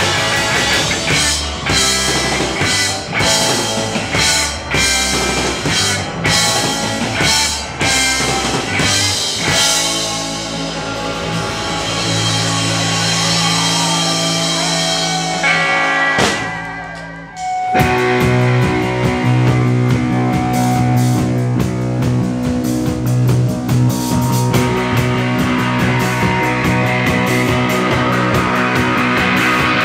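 Rock band playing live, with electric guitar and drum kit. Just past the middle the music dips and breaks off abruptly, and a different, steadier passage starts.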